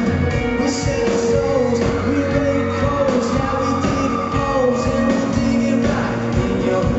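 Live rock band playing: a male lead singer sings over electric guitar and drums, recorded from the crowd in a concert hall.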